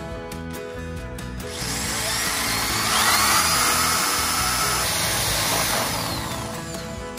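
Cordless drill with a spade bit boring through the thin wooden wall of a box, cutting in about a second and a half in and dying away near the end, with a rising whine as it bites in. Background music runs underneath.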